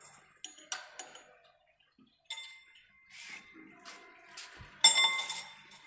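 Steel wire chain-link mesh clinking and rattling against the machine's toothed steel wheels as it is pulled and hooked on by hand: scattered light metallic ticks and short rings, with one louder clank about five seconds in.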